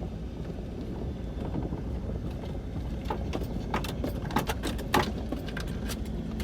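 Truck running at low speed: a steady low rumble, with several sharp clinks and rattles in the second half.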